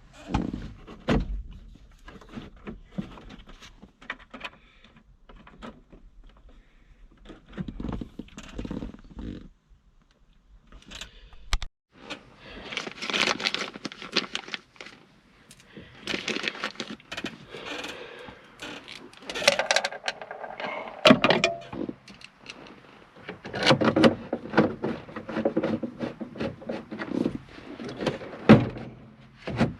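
Hand work on a plastic truck dash panel: scattered clicks and knocks, then stretches of scraping and rattling from about halfway through, with a few sharp knocks, as the panel is fitted and screwed in place.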